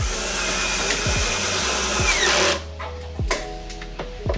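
Cordless drill running for about two and a half seconds, driving a screw into a speaker cabinet, then winding down with a falling whine.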